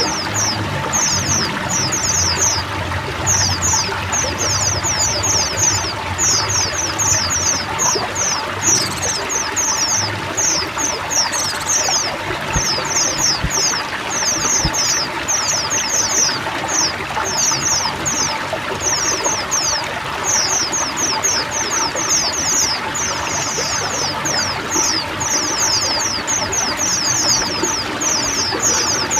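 A chorus of white-eyes (pleci) twittering without pause in quick clusters of high, falling chirps, over steady running, trickling water.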